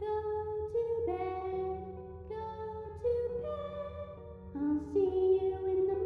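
A young girl's voice singing a slow melody in long held notes that step from one pitch to the next, over a low steady drone.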